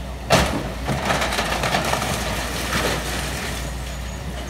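Caterpillar hydraulic excavator running steadily as its grapple tears into a building, with a loud crash of breaking debris about a third of a second in, followed by more crunching and clattering of wood and sheet-metal roofing.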